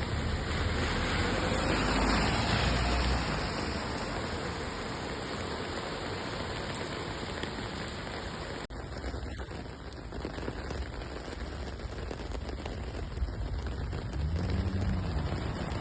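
Steady rain falling on a city street, heard as an even hiss. A low rumble swells and fades near the end.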